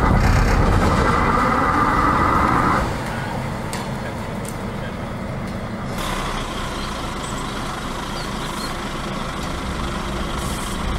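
Clayton CB40 40-tonne battery electric locomotive moving slowly on yard track: a steady mechanical hiss and low rumble, louder for the first few seconds. A lighter, higher hiss sets in at about six seconds.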